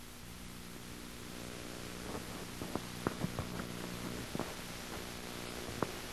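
Steady low electrical hum with hiss under it and a few faint scattered clicks: background noise of the recording, with no other sound in the pause.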